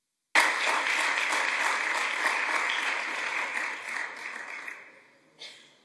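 Audience applauding, starting abruptly and dying away after about four and a half seconds, with a faint knock near the end.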